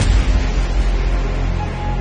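Background music with deep bass. It gets suddenly louder at the start with a crash that fades away slowly.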